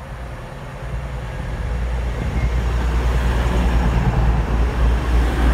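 A train approaching: a low engine hum and wheel-on-rail noise grow steadily louder over the first few seconds, then hold loud as it draws near.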